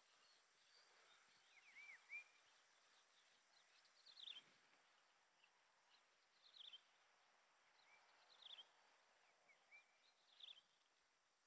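Near silence with faint bird calls: short, falling chirps that come about every two seconds.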